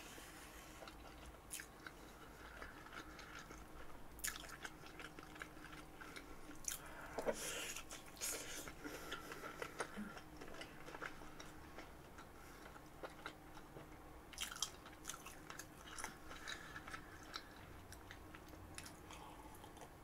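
Close-miked chewing and biting of sugar-topped French toast: soft, faint mouth sounds with scattered crisp crunches as the sugar is bitten, louder about 8 seconds in and again around 14 to 16 seconds in.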